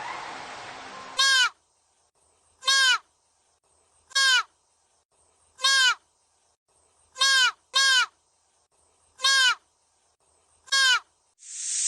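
A short animal call repeated eight times, about one every one and a half seconds, two of them close together midway. Each call is brief and clear, with a pitch that rises then falls. A whoosh swells in near the end.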